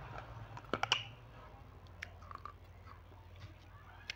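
Close-miked chewing of a crunchy snack: a quick cluster of crisp crunches about a second in, then a few scattered softer crunches.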